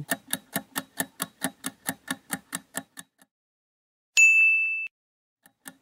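Quiz countdown-timer sound effect: fast, even ticking for about three seconds, a short silence, then a single bright ding about four seconds in, marking the answer reveal.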